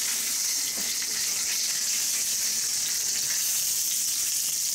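Dry-aged pork tenderloin searing in oil in a cast-iron skillet: a steady, bright sizzle.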